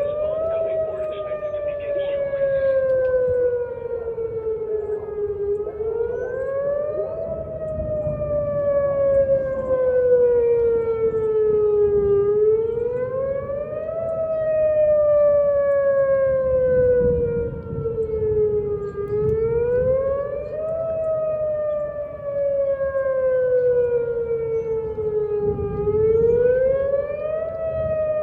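Outdoor warning siren sounding a wail for a severe thunderstorm warning. Its pitch rises quickly, then falls slowly, in a cycle of about seven seconds that repeats four times, over a low background rumble.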